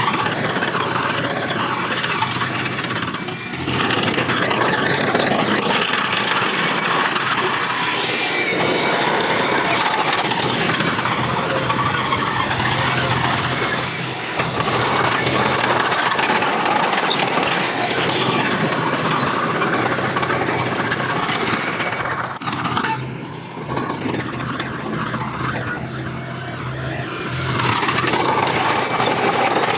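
Heavy earthmoving machinery working: a diesel engine running steadily with dense mechanical noise over it, easing off briefly about three-quarters of the way through before picking up again.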